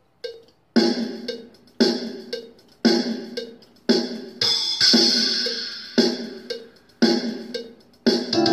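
A Cubase session's drum track playing over the metronome click. The click ticks about twice a second, and the drums come in just under a second in with a strong hit about every second, hi-hat, and a cymbal wash around the middle.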